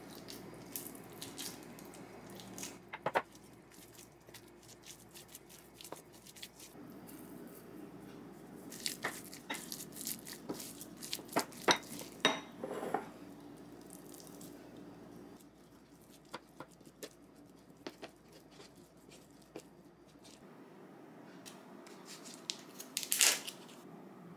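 Wooden spoon stirring and scraping rice mixed with basil pesto in a glass mixing bowl, with light scattered clicks and taps against the glass, busiest around the middle. Near the end, a short, louder crackling squish as soft tofu is pushed out of its plastic tub.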